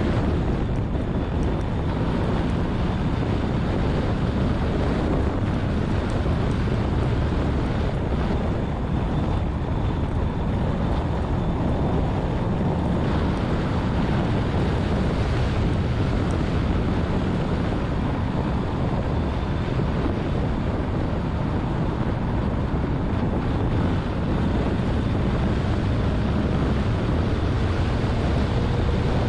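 Porsche lapping a racetrack at speed, heard from a low-mounted action camera: steady wind buffeting the microphone and road roar, with the engine note faint beneath. The engine note rises near the end as the car speeds up.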